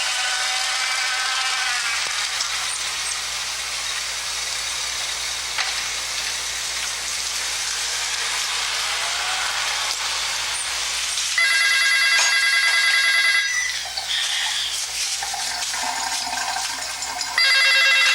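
A telephone ringing twice, each ring a trilling, bell-like burst of about two seconds, the second starting near the end. Before the first ring there is a steady background noise.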